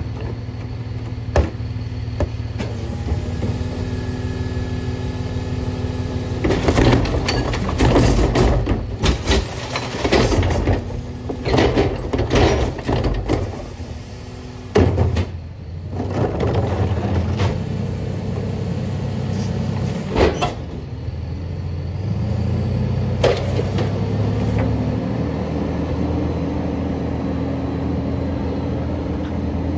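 McNeilus rear-loader garbage truck's engine idling steadily while recycling is dumped from a plastic wheeled cart into the rear hopper: a dense clatter of bottles, cans and cardboard falling and knocking, from about 7 to 14 seconds in. A few single sharp bangs of the cart come before and after. In the last several seconds the engine speeds up and holds a higher note as the truck pulls away.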